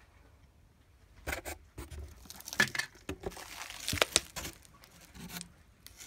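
Clear plastic wrapping crinkling and rustling as it is handled around a new brake disc in a cardboard box, with several sharp clicks mixed in, starting about a second in and dying away near the end.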